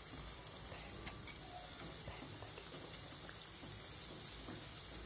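Hot oil bubbling and crackling faintly around maida-coated chaap pieces deep-frying in a kadai, with scattered small ticks.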